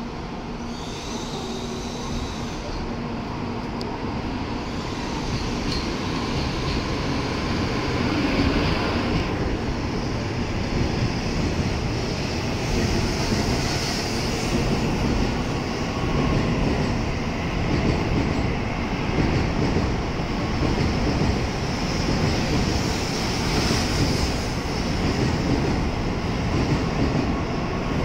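N700a-series Shinkansen train pulling out of the platform and gathering speed. Its running noise builds over the first eight seconds or so, then holds as a steady rushing rumble of the cars passing.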